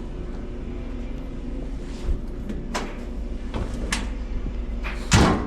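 Steady low machine hum with a few light knocks scattered through it and one louder thump near the end.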